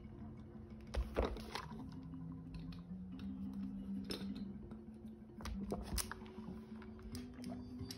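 Faint piano instrumental music in the background, with a few short clicks and knocks from a drinking cup being handled while someone drinks water.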